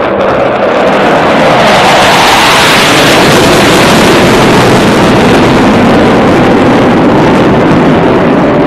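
Loud, steady jet roar from a diamond formation of four Blue Angels F/A-18 Hornet fighter jets passing overhead.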